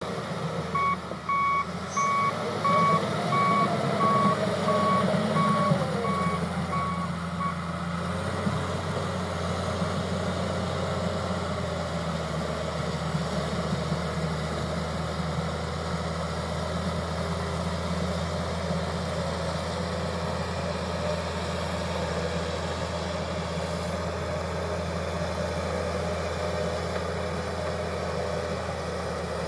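John Deere 700H bulldozer's backup alarm beeping steadily for about the first seven seconds while the machine reverses, over its diesel engine. The engine is a little louder, with a rising and falling note, in the first six seconds, then settles to an even running sound.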